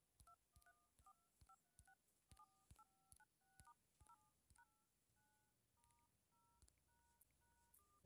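Faint DTMF touch tones from the LG G5 smartphone's in-call dial pad as its keys are tapped. They come as a run of about seventeen short two-tone beeps, two or three a second, each with a faint click.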